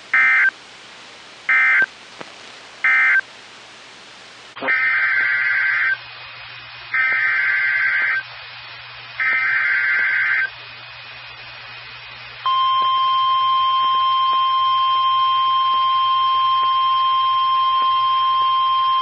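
NOAA Weather Radio Emergency Alert System data bursts: three short end-of-message bursts, then three longer warbling header bursts announcing the next warning. About twelve seconds in, the steady 1050 Hz weather-radio warning alarm tone begins and holds.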